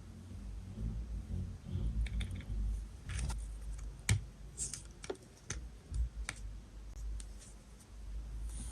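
Small hard plastic pieces being handled, giving about a dozen sharp, irregular clicks and taps over a low handling rumble. The loudest click comes about four seconds in.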